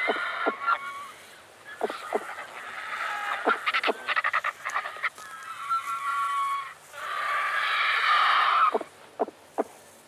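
Black (cinereous) and griffon vultures squabbling at a carcass: harsh, rasping hisses in several long bouts, the loudest near the end, with sharp clicks and knocks in between.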